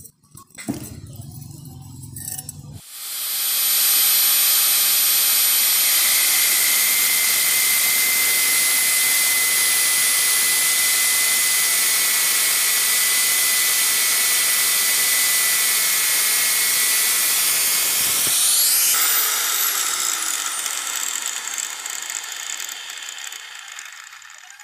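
Angle grinder with an abrasive cut-off disc starting up about three seconds in and cutting into a flat steel bar: a steady high whine over a grinding hiss. Later it is switched off and winds down, the whine falling in pitch and fading near the end.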